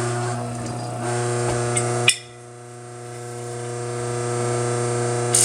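Mockmill 100 electric stone grain mill running on its finest setting (level 1), a steady motor hum. About two seconds in the sound drops abruptly with a click, then builds up gradually again. Near the end a louder, rougher noise starts.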